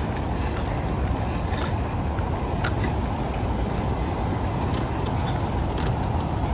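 Steady road and engine rumble of a vehicle on the move towing an RV trailer, with a few faint light ticks now and then.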